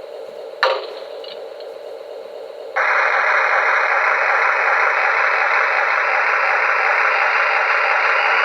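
QSI Maxx Traxx model-train sound unit playing its water-fill effect through a small speaker: a short clank about a second in, then a loud steady rush of water filling the locomotive's tank that starts suddenly near three seconds in.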